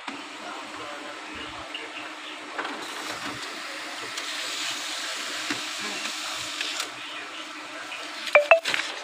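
HP LaserJet Pro MFP M126a laser printer running a print job: a steady motor hum with a rushing paper-feed noise through the middle, then two sharp clicks close together near the end as the page is fed out.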